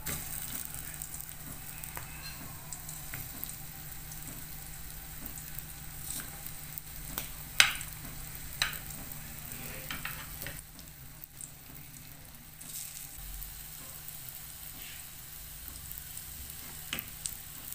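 Breadcrumb-coated potato croquettes frying in shallow oil in a pan: a steady sizzle with light crackling, broken by a few sharp clicks around the middle, the loudest about halfway through.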